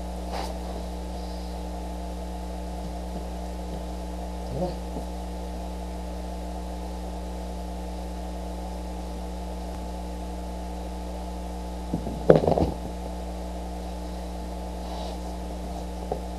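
Steady electrical hum made of several fixed low tones. About twelve seconds in comes a brief, louder cluster of short sounds.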